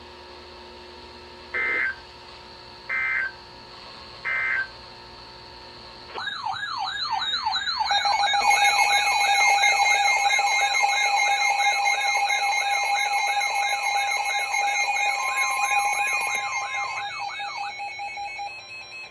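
Weather radio emergency alert activation for a severe thunderstorm warning: three short bursts of digital SAME header data tones, then a loud warbling siren-like alert alarm sweeping up and down about twice a second over steady electronic tones. The alarm swells and then fades out near the end.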